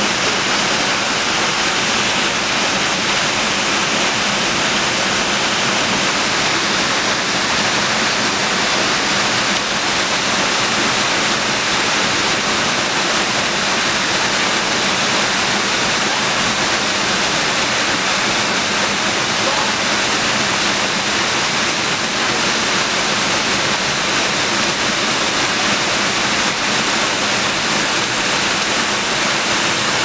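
A waterfall rushing: a steady, unbroken sound of falling water.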